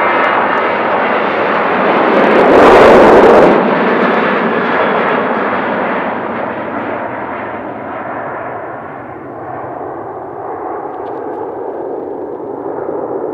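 Boeing 737-800's CFM56 jet engines at takeoff thrust as the airliner rolls past, lifts off and climbs away. The noise carries a faint fan whine and is loudest between about two and three and a half seconds in, then slowly fades.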